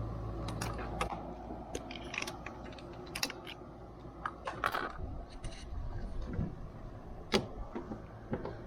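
Irregular light clicks and metallic clinks of parts and hand tools being handled around the engine, a dozen or so scattered taps, over a low hum that fades out in the first second.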